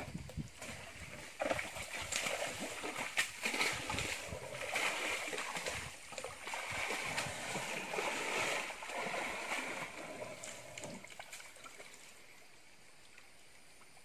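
Asian elephant wading in a shallow river, its legs splashing and sloshing the water in irregular splashes; the splashing eases off over the last couple of seconds.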